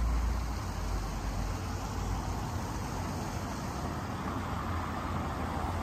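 Road traffic on a city street: a steady noise of passing cars, with a deep rumble at the start that fades within the first second.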